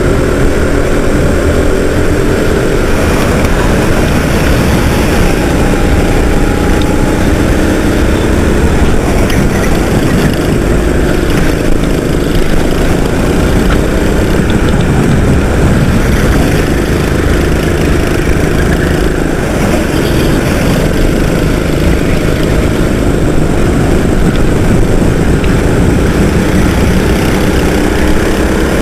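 Go-kart engine running hard on board a racing kart, its pitch rising and falling again and again as it accelerates out of corners and backs off into them, with a constant rushing noise over it.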